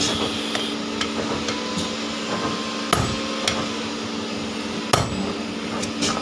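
Forging work on a steel anvil: a few separate sharp metallic blows of a hand hammer and the workpiece, the loudest about three and five seconds in, over a steady hum.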